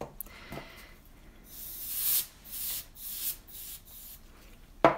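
Can of compressed air, the keyboard-dusting kind, blown in about four short hissing bursts through its thin straw onto wet alcohol ink. A sharp knock comes near the end.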